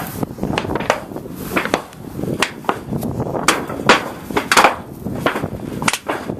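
Footsteps crunching and swishing through tall dry grass and brush, a run of irregular sharp crackles over low rumble.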